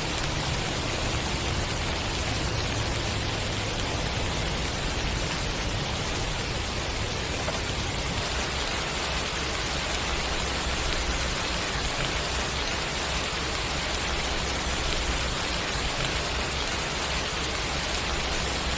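Steady rain falling, an even hiss of drops on surfaces with no change in strength.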